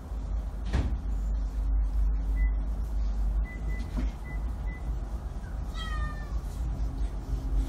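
A cat gives one short, high mew that falls slightly in pitch about six seconds in, over a steady low hum. There is a brief knock about a second in.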